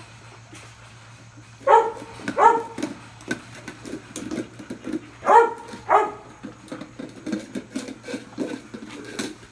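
Airedale terrier puppy barking: two short high barks about two seconds in and two more about five seconds in, with quieter short sounds in between.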